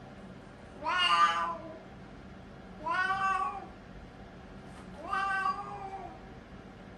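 Siamese cat meowing three times, about two seconds apart, while crouched straining on a toilet-training seat; the owner puts the meows down to constipation.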